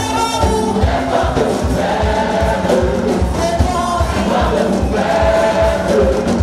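Gospel praise song with a choir singing over a band, with a steady bass-drum beat.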